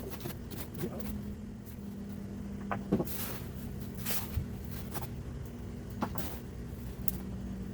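Rustling and scraping of hands digging through potting soil in a potato grow bag, in short irregular bursts with a few clicks, over a steady low hum.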